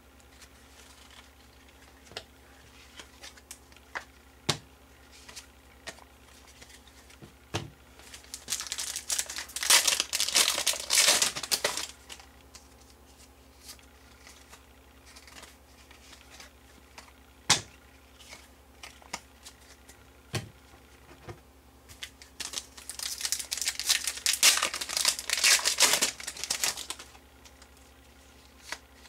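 Two long spells of a foil trading-card pack wrapper tearing and crinkling, with sharp clicks and slides of cards being flipped and sorted by hand in between.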